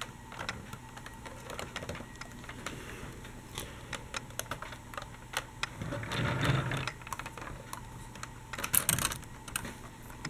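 Small plastic clicks and taps as the doors of a Dickie Toys City Liner toy tram are pushed open and shut by hand. A louder scraping handling noise comes about six seconds in, and a quick run of clicks follows near the end.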